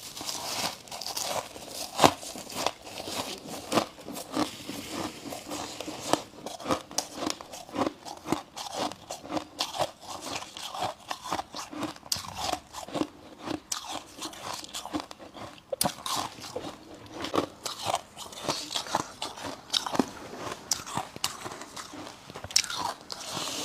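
Someone biting and chewing refrozen freezer frost: a continuous run of sharp, irregular icy crunches, with an especially loud bite about two seconds in.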